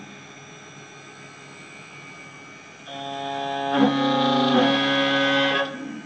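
N-Gravetek Y4S desktop CNC engraving machine milling a metal workpiece on its rotary axis: a steady low machine hum, then about three seconds in a much louder tone of steady pitch sets in, holds for nearly three seconds and cuts off sharply.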